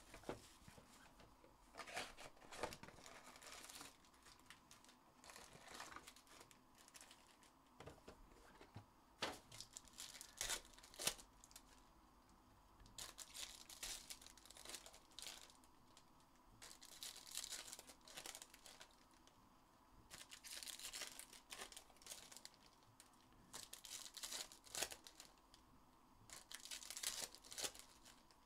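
Faint tearing and crinkling of trading-card pack wrappers as Panini Select hobby packs are ripped open, in irregular short bursts with brief pauses between.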